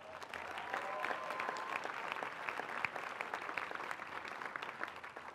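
Large crowd applauding: a dense, steady clatter of many hands clapping that swells in the first second and eases off slightly toward the end.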